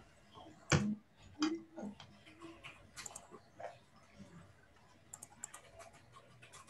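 Computer keyboard and mouse clicking: scattered irregular taps, with one louder knock about a second in.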